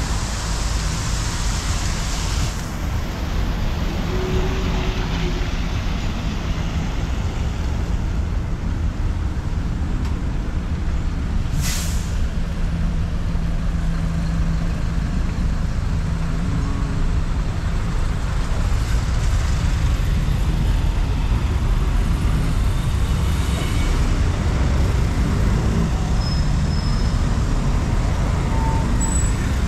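City street traffic with a steady low rumble, and one brief hiss about twelve seconds in.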